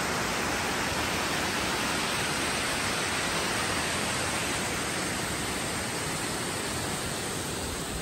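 Mountain waterfall cascading down rock: a steady, even rush of water.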